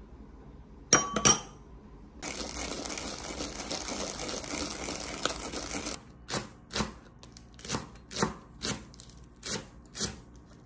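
A metal spoon clinks twice against a ceramic bowl, then a steady rushing noise runs for about four seconds. After that a chef's knife chops romaine lettuce on a wooden cutting board, about nine strokes at roughly two a second.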